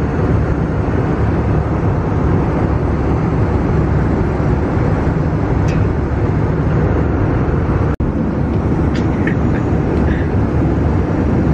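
Steady cabin noise of an airliner in flight: a dense, even hum and rush of engines and air, strongest in the low end. It cuts out for an instant about eight seconds in.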